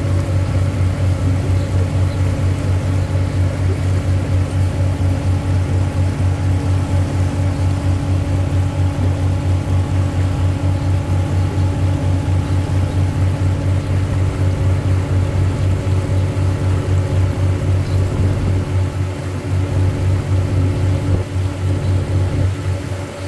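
River cruise boat's engine running at a steady speed, heard on board as a deep, fast-throbbing hum with a few steady higher tones over it.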